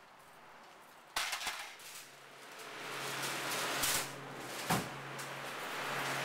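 A metal wire-rack cart clanks once about a second in. Then the steady rushing noise and low hum of a walk-in cooler's evaporator fans builds up and holds, with two more knocks from the cart a little later.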